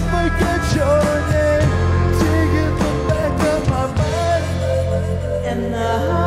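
Rock band playing live: drum kit, electric bass and electric guitar, with a male voice singing over them.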